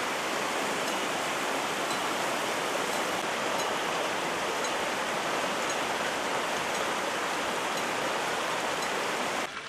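Fast-flowing muddy floodwater rushing steadily over fields and through vegetation, a dense, even rushing noise that cuts off suddenly near the end.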